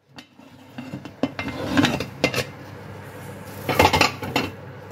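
Cutlery clinking and scraping against dishes: a few separate knocks in the first half, then a louder cluster of clinks near the end.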